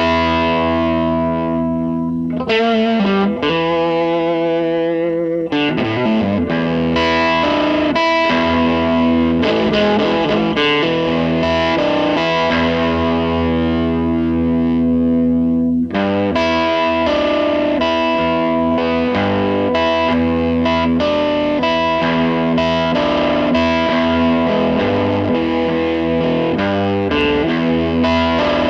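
Background rock music with distorted electric guitar.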